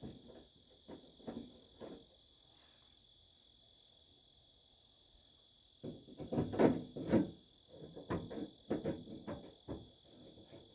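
Crickets chirping steadily in the background, with bursts of short knocks and clicks from hand work on the truck door, loudest from about six seconds in.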